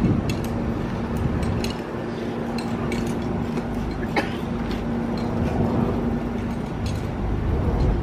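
Steady low hum of engines running at idle, over a low rumble; the hum fades out about two-thirds of the way through. Scattered sharp metallic clinks and taps run throughout.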